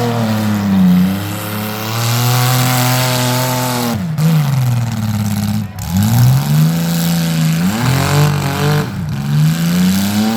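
Demolition derby car engines revving hard, their pitch repeatedly climbing and falling as the throttle is worked on and off, with a second engine running steadier underneath. The revs drop sharply twice, at about four and six seconds in.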